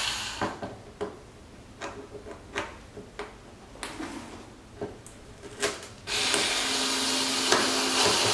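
A few light clicks and taps, then about six seconds in a cordless screw gun starts running steadily, starting a screw into the splitter's mounting holes without yet tightening it down.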